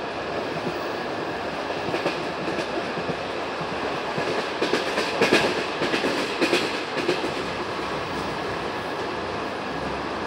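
Railway passenger coach running along the track with a steady rolling rumble of wheels on rail. A run of clacks and knocks comes about halfway through as the wheels cross track joints.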